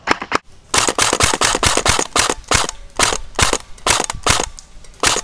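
Airsoft gun firing a rapid string of sharp shots, several a second, slackening briefly near the end.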